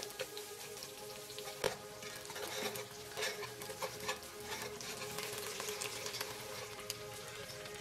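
Palm sugar with garlic and spices sizzling and bubbling as it caramelizes in a metal pot, stirred with a metal ladle that scrapes and clicks against the pot, with one sharper knock about one and a half seconds in.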